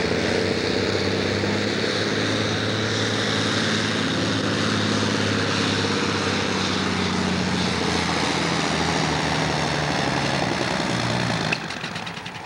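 John Deere farm tractor's diesel engine running hard at full throttle, pulling a loaded sled with black smoke from the stack. Near the end the sound drops off abruptly as the power comes off at the end of the pull.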